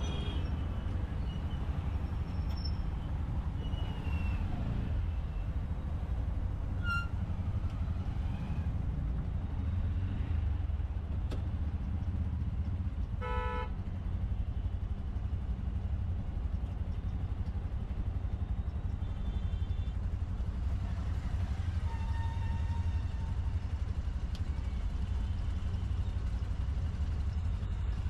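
Road traffic: a steady low rumble of engines, with a short horn blast about halfway through and a few fainter horn toots later.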